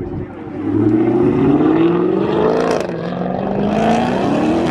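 Car engine accelerating hard: its pitch rises steadily, drops at a gear change about three seconds in, then climbs again through the next gear.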